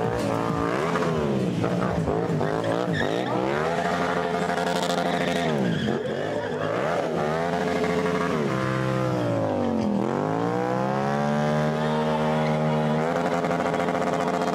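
Stunt motorcycle engine revving hard, held at high revs for a second or two at a time, with the revs dropping and climbing back several times, the deepest drop about ten seconds in.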